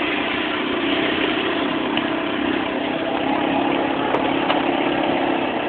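Steady engine hum and road noise from the vehicle hauling an enclosed dog box, heard from inside the box.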